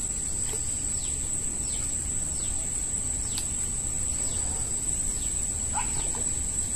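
Steady high-pitched insect drone with a bird repeating short falling chirps about every half-second, over a low background rumble.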